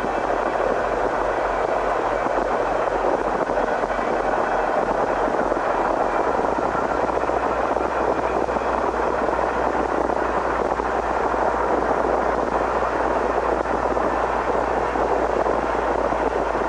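Freight train of tank cars rolling past, a steady noise of wheels on rail with no distinct clicks, over a low hum.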